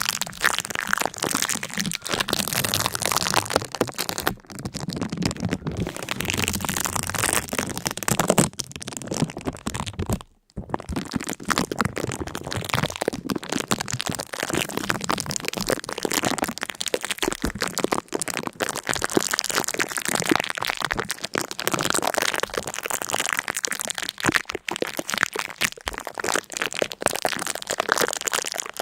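Continuous dense crackling and crunching, with a brief break about ten seconds in.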